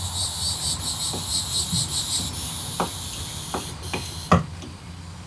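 Insects chirping high-pitched in rapid pulses, about five a second, turning to a steady buzz about two seconds in that stops a little before four seconds. A few light knocks come after it, the sharpest about four seconds in, as the tip of a hot wood-burning tool works the softened plastic of the kayak hull.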